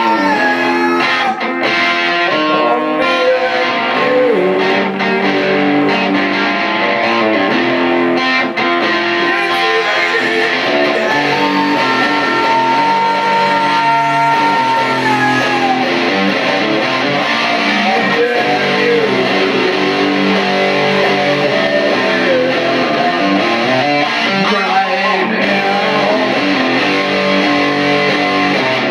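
Rock band playing an instrumental passage: an electric guitar lead with bent, held notes over strummed guitar chords.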